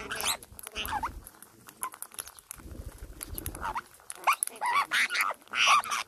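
Parakeets calling close by, with short chirps and squawks that rise and fall in pitch, over sharp taps and low bumps from pecking at food right by the microphone. The calls come thicker and louder in the last two seconds.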